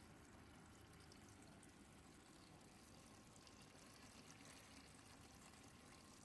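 Faint, steady sound of a thin stream of filtered water pouring from a small hose into a partly filled plastic bucket.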